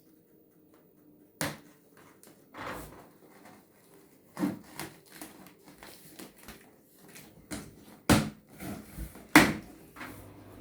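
Irregular knocks, clatters and handling noise from unpacking a new microwave oven from its box, with the sharpest knocks about a second and a half in and twice near the end.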